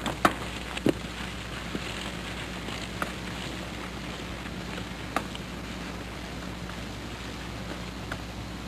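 Steady hiss with a low, constant hum, the noise floor of an old VHS recording made outdoors, with a few faint clicks near the start and once about five seconds in.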